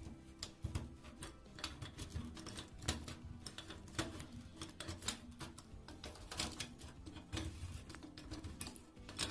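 Background music, with frequent sharp clicks and taps over it at an uneven pace of a few a second.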